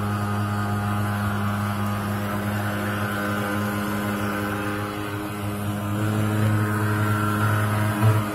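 Steady buzzing engine drone of a thermal fogging machine spraying fog, with a strong low hum. A couple of louder bumps come near the end.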